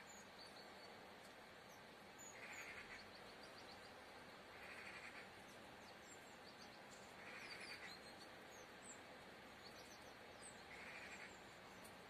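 Faint small songbirds calling. A short rattling call repeats about every two to three seconds, with scattered quick high chirps between.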